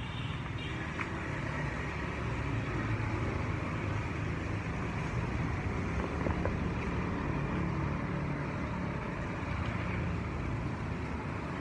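Steady engine and road noise of a moving vehicle: a continuous low rumble with a hiss over it.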